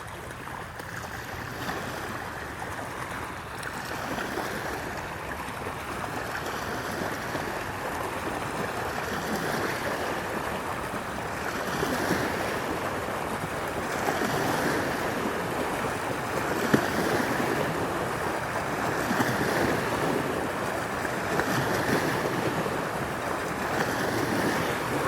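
Water rushing and splashing along the hull of a kayak catamaran under way, with wind buffeting the microphone; a steady wash that grows slowly louder, with one brief knock about two-thirds of the way through.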